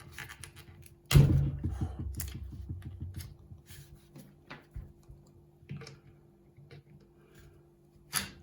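Plastic parts of an Amazon Echo 3rd-generation smart speaker being pulled apart by hand. There is a sharp clack about a second in, then a quick rattling that fades over a couple of seconds, then light clicks and taps, with a sharper click near the end.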